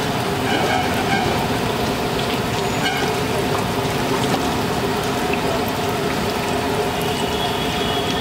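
Batter-coated green chillies (mirchi bajji) deep-frying in a large wok of hot oil, a steady sizzle.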